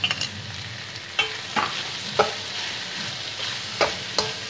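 Vegetables and scrambled egg frying in oil in a metal karahi with a steady sizzle, while a metal utensil stirs and scrapes them, knocking against the pan about six times with a short ring.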